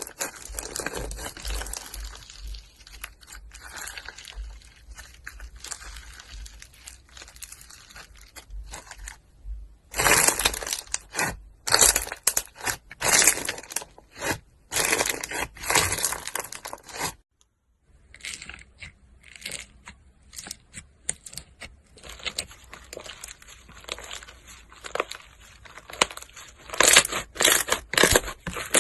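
Slime being squished, pressed and stretched by hand, making dense crackling, clicking and popping with no steady rhythm. It stops for under a second about seventeen seconds in, then the crackly squishing resumes.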